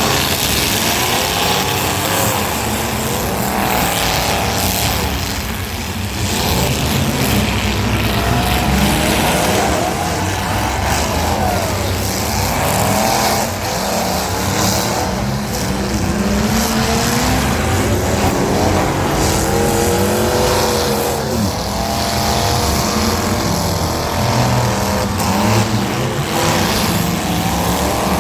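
Several small cars' engines revving up and down at once in a demolition derby, pitches rising and falling over one another without pause.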